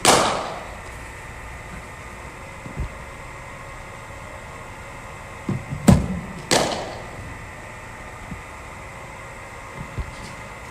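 Cricket ball deliveries from a bowling machine: sharp knocks as the ball is fired, bounces and meets the bat, each ending with an echoing decay. One knock comes right at the start, and a quick run of three comes about six seconds in.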